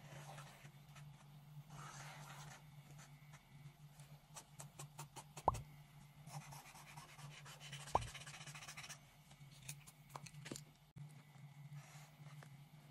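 Paint marker tip scratching and tapping on paper in short strokes. Two sharp pops stand out, about five and a half and eight seconds in, over a steady low hum.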